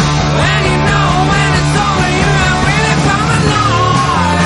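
Loud rock music with a singing voice over a steady bass line.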